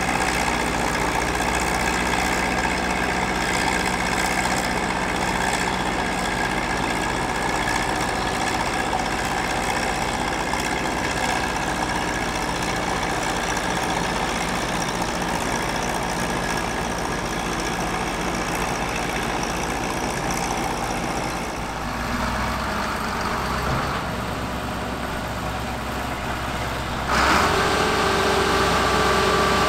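Heavy engines of vintage earthmoving machinery running steadily at idle. Near the end the sound jumps louder and a new steady, higher tone sets in.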